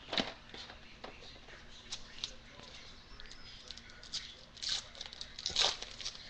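Trading cards being handled: faint rustling and small clicks of cards sliding and shuffling against each other, with a few louder brushing swishes, one near the start and two near the end.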